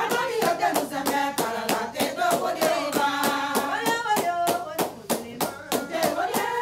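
A group of women singing together with steady, quick hand clapping in time.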